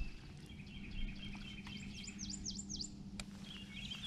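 Songbirds chirping in short repeated notes, with a quick run of four downslurred whistles about two seconds in, over a steady low hum.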